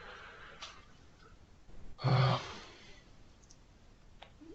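A person sighing audibly, once, about two seconds in, followed by a single click near the end.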